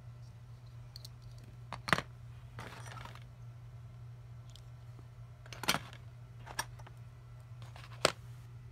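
Small toys being handled and set down on a hard surface: three sharp knocks a few seconds apart and a lighter one, with faint clicks and a short rustle, over a steady low hum.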